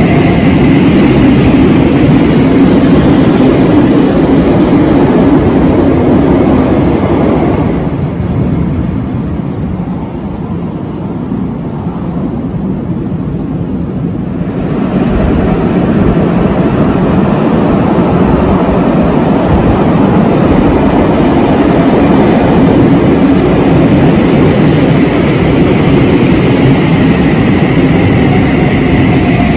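A CAF-built Bucharest Metro train pulls out of the underground station, its rail noise fading over about the first eight seconds. After a quieter gap, the next CAF train comes in from about fifteen seconds on, running loud along the platform to the end.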